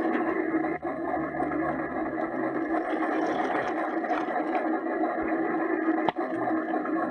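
A steady mechanical hum with a held low tone, cut by two very brief dropouts, one about a second in and one about six seconds in.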